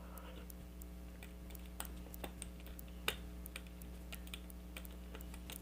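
Faint, irregular small metallic clicks of a hook pick working the pins of a pin-tumbler challenge lock held under tension in a false set, with one sharper click about three seconds in, over a steady low hum.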